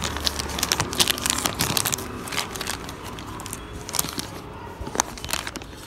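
Crinkling and clicking of a small packet of bulbs being handled, thick for the first couple of seconds and then a few scattered clicks.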